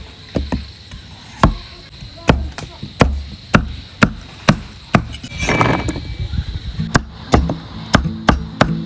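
Repeated chops of a heavy kitchen knife on a chopping board, irregular but about two a second, with a short rasping scrape about halfway through.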